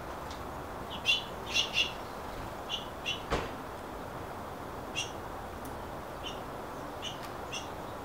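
Small songbirds giving short, high chirps, scattered singly and in quick twos and threes, over a steady background hiss. A single sharp knock sounds about three and a half seconds in.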